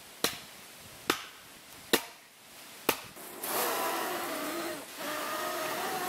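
Four sharp wooden knocks about a second apart, then two long breaths blown into campfire embers to fan the flames, the second with a faint whistle in it.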